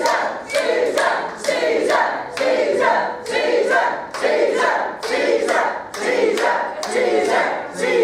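A crowd of actors chanting in unison, a short shout repeated over and over in a steady rhythm, with claps on the beat.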